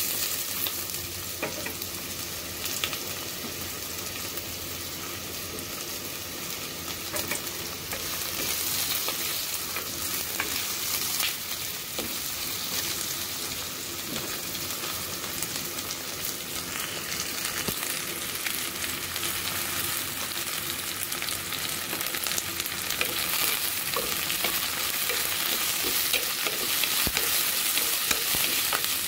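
Shallots, ginger, garlic and spring onion sizzling steadily in a ceramic pot, stirred with a wooden spatula that scrapes and clicks against the pot now and then. The sizzle grows somewhat louder toward the end.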